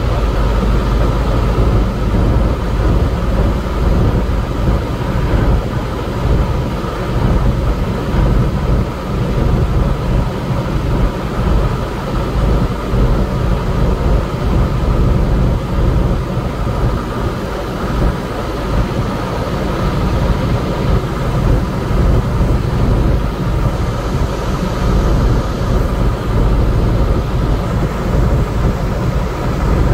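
Semi truck on the move on a snow-covered highway: a steady drone of the diesel engine and tyre and road noise, heard from inside the cab.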